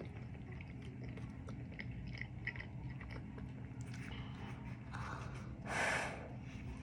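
Close-up chewing of a taco: small wet smacks and crunches in the mouth, with a louder breath through the nose about six seconds in, over a steady low hum.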